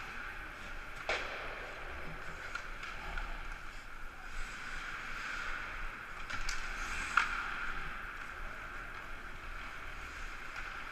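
Ice hockey play heard from the bench: a steady hiss of skates and rink noise, with three sharp clacks of sticks and puck, one about a second in and two close together around seven seconds in, the last the loudest.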